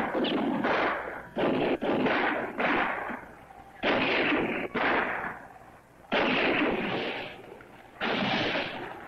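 A gun battle: about ten gunshots at irregular gaps, each one ringing out with a long echo.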